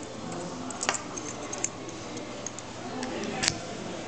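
A bunch of metal keys jingling and clicking against an American Lock 1100-series padlock as a key is fitted into its keyway. There are two sharper clicks, about a second in and about three and a half seconds in, with light ticks between them.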